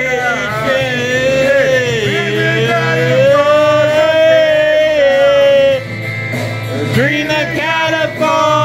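A man singing loudly along with a karaoke backing track. He slides down and then holds one long wavering note for several seconds. He breaks off briefly about six seconds in, then carries on singing.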